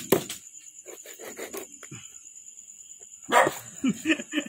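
A dog barking several times in quick succession near the end. Just before that, right at the start, a single sharp knock of a knife blade striking the plastic chopping board.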